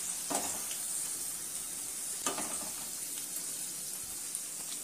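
Rice bran oil sizzling steadily in a kadhai as food pieces deep-fry, with a couple of light clicks from metal tongs lifting pieces out of the pan.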